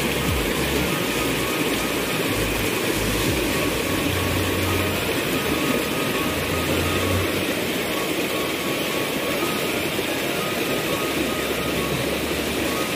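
Steady rush of a waterfall's falling water, an even noise that holds at one level throughout.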